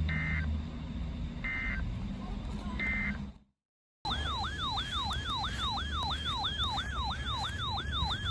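EAS end-of-message data code: three short two-tone bursts, about a second and a half apart. After a brief cut, an electronic siren-like alert tone starts, rising and falling about three times a second, announcing the next warning (a flash flood warning).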